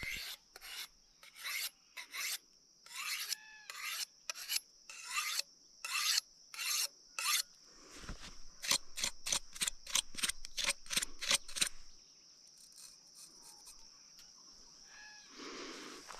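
Rasping strokes of a steel blade, about one every half second at first, then a quicker run of about four a second, as a knife is worked during the butchering of a chital deer carcass. A faint, steady high insect buzz lies underneath.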